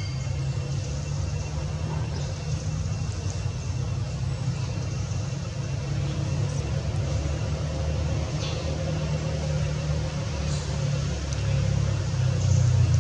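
A steady low rumble of motor traffic that swells louder near the end, with a few faint, short high chirps.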